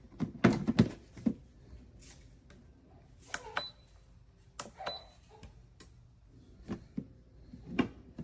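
A series of clicks and knocks of objects being handled, with two short high beeps a little over a second apart near the middle.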